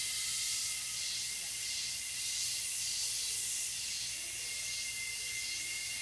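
Tropical cicadas and other insects calling in chorus: a high, hissing buzz that swells and fades in waves a little under a second apart, over a steady high-pitched whine.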